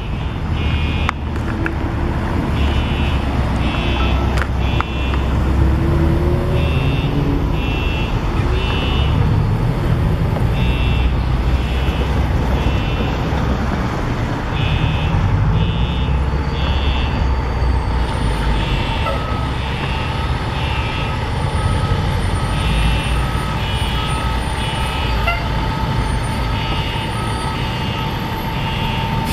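Station fire alarm sounding in a repeating pattern of three short beeps and a pause, over the deep, steady rumble of a heavy engine running. A steady tone joins about two-thirds of the way through.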